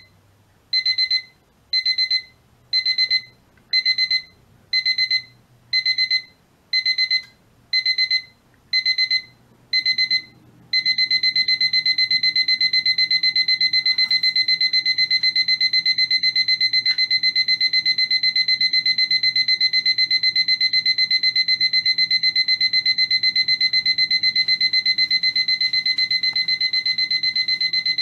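LEGO Wyldstyle minifigure alarm clock's electronic buzzer going off: a high beep about once a second, which about ten seconds in turns into a fast, unbroken beeping.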